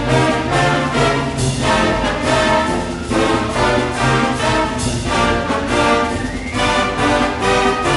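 Orchestral background music with brass, moving in a steady rhythm.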